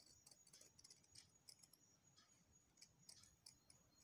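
Scissors cutting through fabric and its backing sheet: a run of faint, quick, irregular snips.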